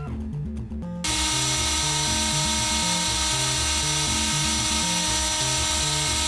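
Compact router spindle on a CNC machine running at full speed: a steady high whine with a hiss, starting abruptly about a second in. Background music with a bass line plays underneath.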